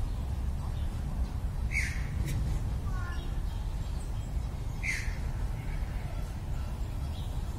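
A bird giving a short, falling squawk twice, about three seconds apart, with a few faint chirps between, over a steady low background rumble.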